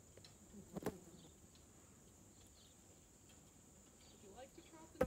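Steady high-pitched buzz of field insects, faint, with two sharp clicks, one about a second in and one at the very end, and faint distant voices just before the second click.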